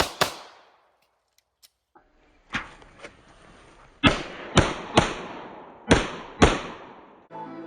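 Pistol shots, each a sharp crack with a short echoing tail. There is a single shot at the start, a quieter one after a pause of about two seconds, then a string of five shots roughly half a second apart.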